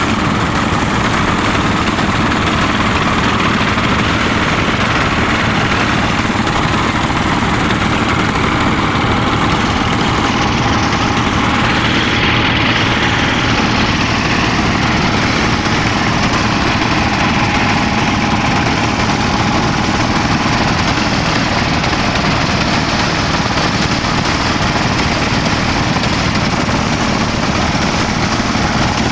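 Fishing boat's engines running steadily, a loud continuous drone with no change in speed.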